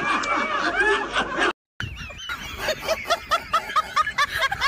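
People laughing. After a brief cut, a rapid string of high giggles, about four a second.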